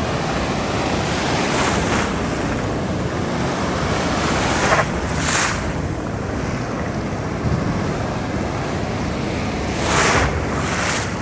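Ocean waves breaking on the shore: a steady rush of surf, with louder swells of breaking wash about five and ten seconds in.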